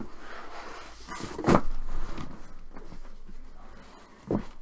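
Cardboard case being opened and handled: scraping and rustling of the flaps with knocks, the loudest about a second and a half in, and a sharp thump near the end.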